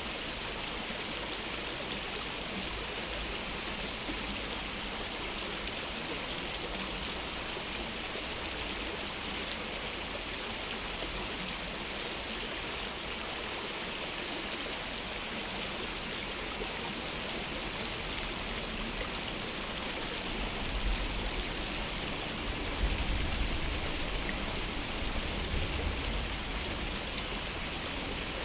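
Steady rushing of a stream's flowing water, with a few low rumbling swells in the last third.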